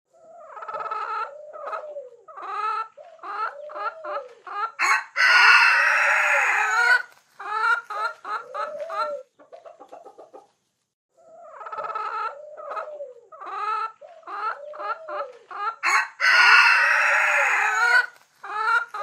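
Hens clucking in short, repeated calls, with a rooster crowing loudly about five seconds in and again about sixteen seconds in. The same stretch of clucking and crowing repeats after about eleven seconds, as a looped recording.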